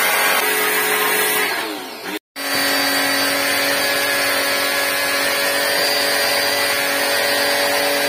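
Electric pressure washer running steadily, its motor humming under the noise of the water jet as it sprays an air-conditioner unit clean. The sound cuts off briefly about two seconds in, then carries on unchanged.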